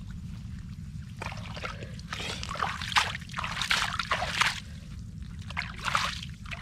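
Hands splashing and sloshing in shallow muddy water, scooping and squeezing out lumps of mud in irregular bursts, over a steady low hum.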